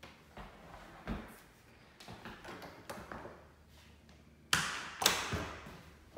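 Interior door's lever handle and latch clicking sharply twice, about four and a half and five seconds in, as the door is worked by hand. Softer knocks and a low thud come before it.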